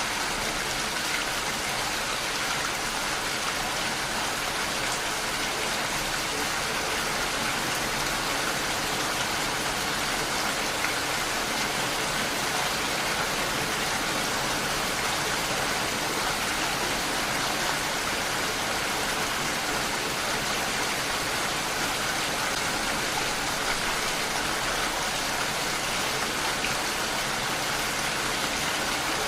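Steady rain falling, an even hiss of drops with no breaks or changes.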